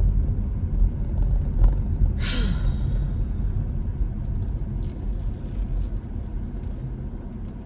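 Car driving, with a steady low road rumble. A brief hiss cuts in about two seconds in.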